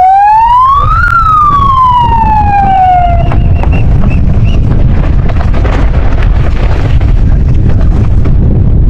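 A siren-like tone rises for about a second, then slides back down over about two seconds and stops. Strong wind buffets the microphone with a loud, steady rumble throughout.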